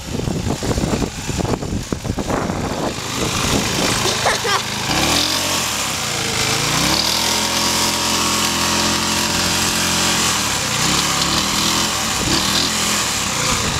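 Small lawn mower engine running under load as it drives a ride-on go-kart along pavement, mixed with a rushing noise. About halfway through, the engine note dips and then holds steady.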